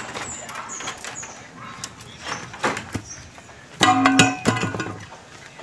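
Sharp knocks on bamboo poles during the wall's assembly, scattered at first, then a loud cluster of ringing, pitched knocks about four seconds in.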